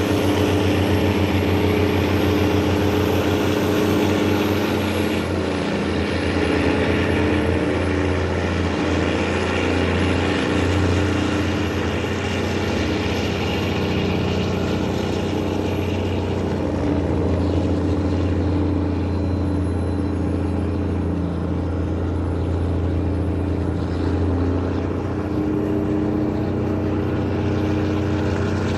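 Tugboat engine running hard under heavy throttle, a steady loud drone with a deep hum whose pitch shifts slightly a few times, as the boat works against a whirlpool current.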